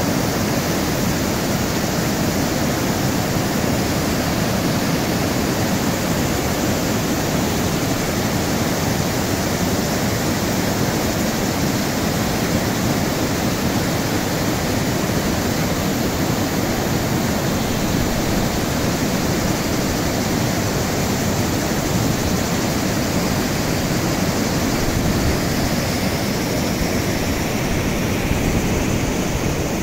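Water tumbling over rocks in a small mountain cascade, a steady, loud rush that does not change.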